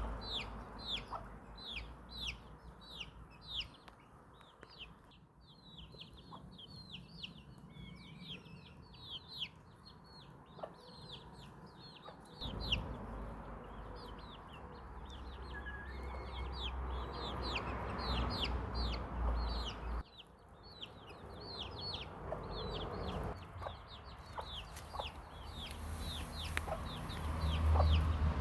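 Hens clucking under a steady chorus of quick, high, falling chirps from many small birds, over a low rumble. The background changes abruptly twice, as at cuts.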